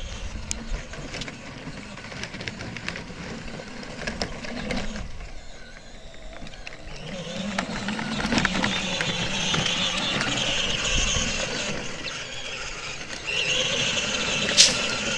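Battery-powered Power Wheels toy ATV driving over dirt, its electric motors and gearboxes whining, louder from about seven seconds in. A sharp click near the end.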